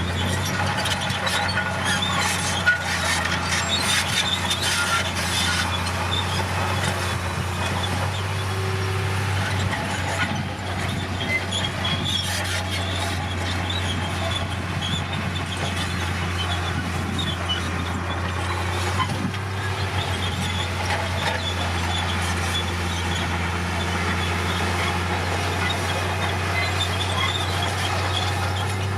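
Komatsu crawler bulldozer's diesel engine running steadily under load, with the steel tracks squealing and clattering as the machine moves.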